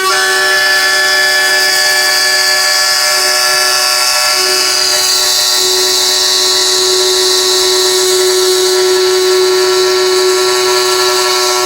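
CNC router spindle running with a steady whine that holds one pitch throughout.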